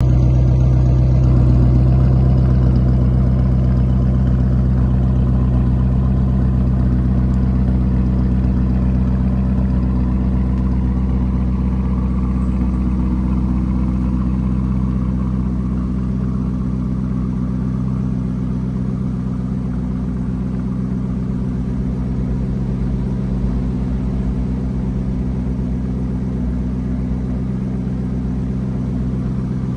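Lamborghini Urus S twin-turbo V8 idling steadily through its quad exhaust. It is a little louder in the first few seconds, then settles lower.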